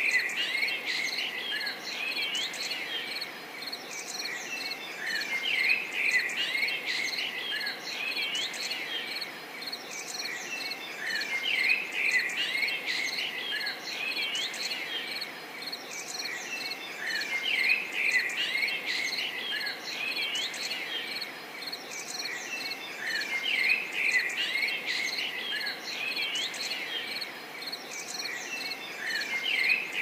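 Small birds chirping over a steady insect trill like crickets, the chirps swelling and fading in a pattern that repeats about every six seconds.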